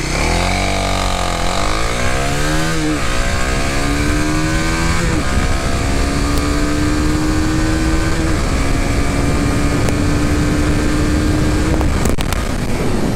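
Kawasaki KLX300SM's single-cylinder four-stroke engine at full throttle from a standstill, its note climbing and then dropping at each of four upshifts, the later gears climbing more slowly. The throttle closes near the end and the engine note falls away.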